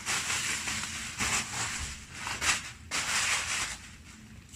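Plastic packaging and bubble wrap rustling and crinkling in several surges as a parcel is handled and unpacked, with a few sharp crackles. It quietens near the end.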